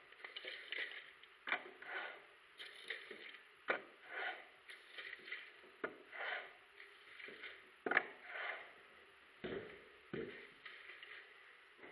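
Steel plastering trowel sweeping over a freshly skimmed, wetted plaster wall in wet trowelling: a run of irregular scraping strokes, with a sharp click every couple of seconds.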